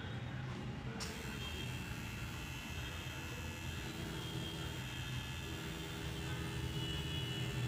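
Coil tattoo machine buzzing steadily as its needle works ink into artificial practice skin.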